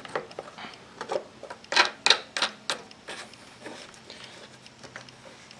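Hard plastic clicks and knocks as the air filter cover is pressed and snapped onto the air cleaner box of a small OHV engine. The clicks come in a quick run over the first three seconds, then fade to a few faint taps.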